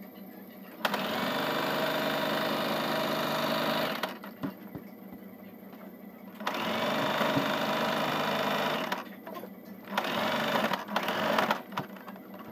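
Electric domestic sewing machine stitching fabric in three runs: about three seconds, then about two and a half, then a shorter run near the end, with pauses between while the fabric is repositioned.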